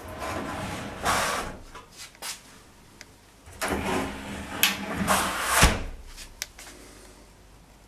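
Irregular scraping and rustling with several sharp knocks, the loudest knock a little past the middle, as of objects being moved and handled in a small room.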